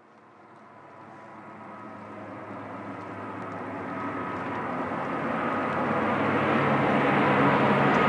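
A rumbling, hissing swell that fades in from silence and grows steadily louder, with a couple of faint steady tones held inside it: the noise build-up opening an electronic pop song.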